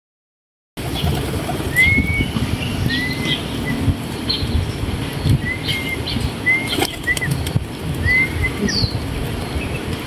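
Feral pigeons flapping and fluttering their wings as they crowd in and fly up to a hand holding food. Short high chirped calls from a bird recur about every second or so over the wingbeats.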